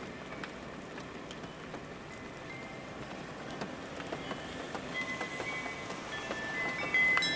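Steady rain with individual drops ticking, under scattered high, bell-like chime tones that ring out louder near the end.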